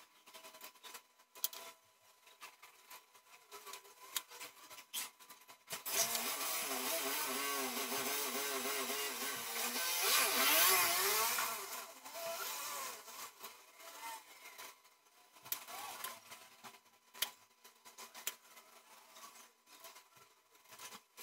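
Small taps and rustles of handling a paper template and leather, then about six seconds of loud, steady scraping with a wavering pitch as a craft knife is drawn through leather along a ruler, loudest near the end of the stroke; scattered taps and handling noises follow.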